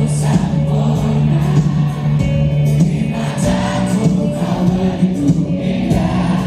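Live amplified rock band playing, with sustained bass and guitar notes and cymbals, and a large crowd singing along; the low notes shift about three seconds in.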